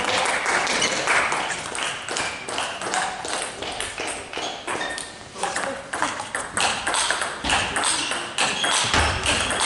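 Table tennis balls clicking in quick, irregular runs as the light plastic ball strikes bats and tables.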